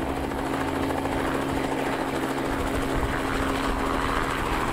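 Aircraft engine running steadily in flight, a constant drone with a low hum that does not change in pitch.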